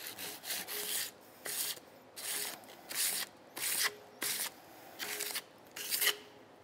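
Emery paper wrapped around a file, rubbed back and forth in strokes against the steel frame of a Ruger single-action revolver to blend the notch at the back of the frame. There are about ten short scraping strokes, roughly one and a half a second.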